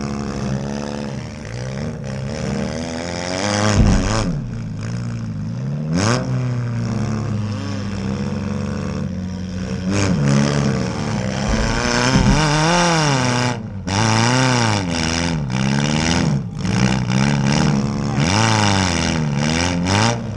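Demolition derby cars' engines revving hard, their pitch swooping up and down over and over, with a few sharp crashes of cars hitting, about four, six and ten seconds in.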